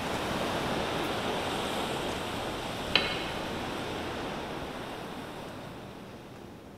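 An even rushing noise, like surf or wind, swells in and then slowly fades away, with a single sharp click about three seconds in.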